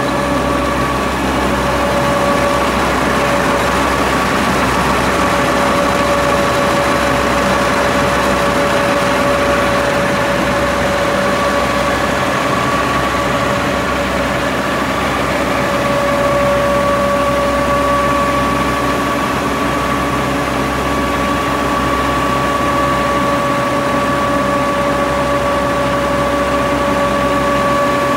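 1993 Sanden 851 six-colour web press running: a steady mechanical drone with a constant whine on top.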